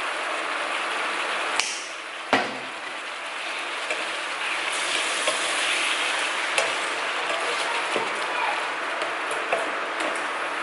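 Squid frying in garlic butter in a nonstick pan, a steady sizzle that grows louder about halfway through, while a plastic spatula stirs the pieces and knocks against the pan a few times, most sharply twice in the first few seconds.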